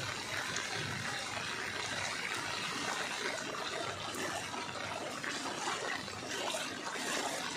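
Floodwater running steadily: a continuous even rush of flowing water.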